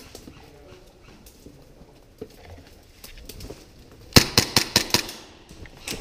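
An airsoft gun firing a quick string of about seven shots in under a second, sharp cracking clicks, about four seconds in, after a few faint scattered knocks.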